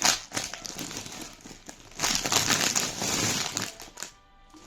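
Plastic packaging crinkling and rustling as it is handled, loudest again about two seconds in and going quiet just before the end.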